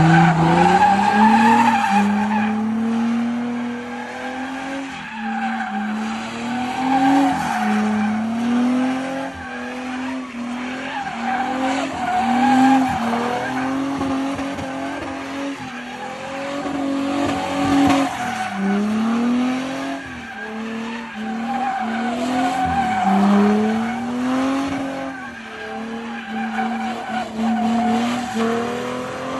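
A car drifting with its tyres spinning and screeching. The engine is held high in the revs, climbing and dropping back every couple of seconds as the throttle is worked.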